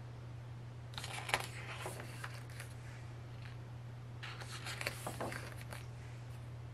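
Pages of a thick photo book being turned: paper rustling and flicking in two bursts, about a second in and again about four to five seconds in, over a steady low hum.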